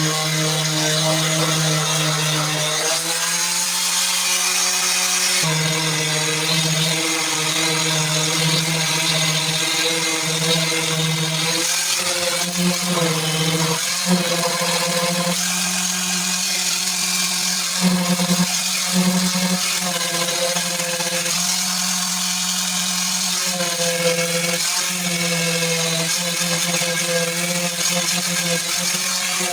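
Power sander running steadily against a car body panel, sanding it down with 80-grit paper in preparation for primer. Its motor whine wavers slightly in pitch, with an abrasive hiss over it.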